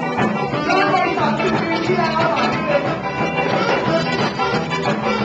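Live band playing in a bar, with a saxophone among the instruments, over a steady beat.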